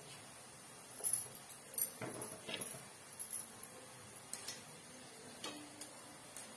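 Light metallic clinks and taps of a wire-mesh spider strainer against a metal wok as gulab jamun are turned in hot oil, with a faint sizzle of deep-frying underneath.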